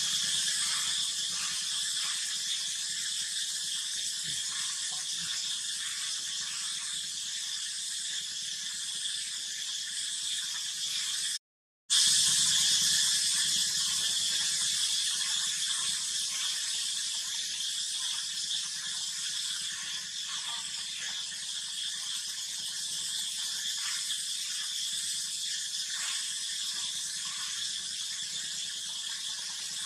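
Steady, high-pitched insect chorus, a continuous shrill buzzing. It cuts out for a moment near the middle and then resumes.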